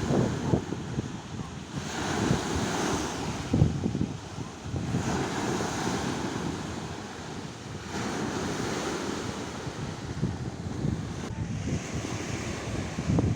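Sea surf washing onto the shore in repeated swells every few seconds, with strong wind buffeting the microphone.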